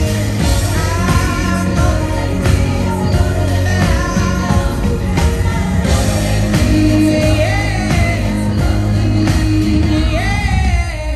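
Live pop performance: a female lead singer with her band, sung over a steady, loud band backing.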